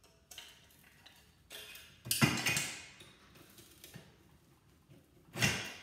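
Hand screwdriver working a screw out of a part of an old Kirby vacuum cleaner: light metallic ticks and clicks, with two louder clatters, about two seconds in and near the end.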